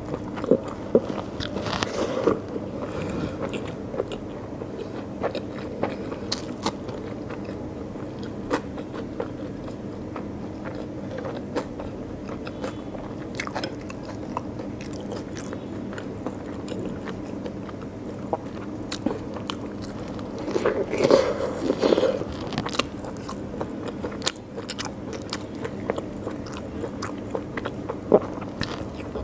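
Close-miked eating of rice and mutton curry by hand: chewing and wet mouth sounds, fingers mixing and squishing rice, with scattered crunchy bites and clicks. Louder flurries come about two seconds in and again around twenty-one seconds.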